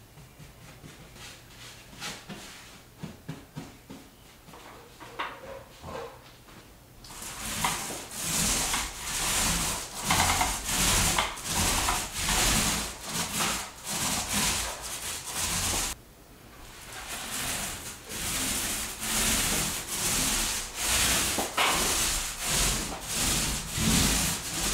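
Paint roller on an extension pole rolling a second coat of paint onto a wall in repeated up-and-down strokes. It starts about seven seconds in, louder than the faint brush strokes before it, and pauses briefly a little past halfway.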